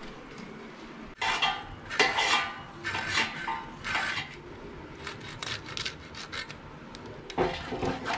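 A garfish (needlefish) being scraped and cut against the steel edge of a floor-mounted aruvamanai blade while it is cleaned, in a series of short scraping strokes, roughly one a second, with a quicker run of strokes about two-thirds of the way in.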